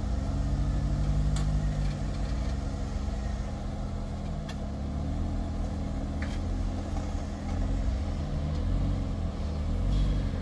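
Jeep Wrangler Rubicon on 40-inch tires crawling slowly over rocks, its engine running at low revs and rising and falling a little as the driver feeds throttle. A few light clicks sound over the engine.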